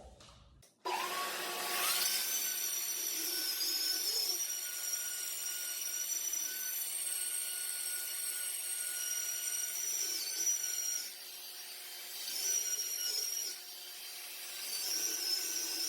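RotoZip spiral saw starting about a second in, its whine rising and then holding steady and high as the bit cuts an outlet-box opening through a wooden cabinet panel. The sound drops in level twice in the second half as the load on the bit eases.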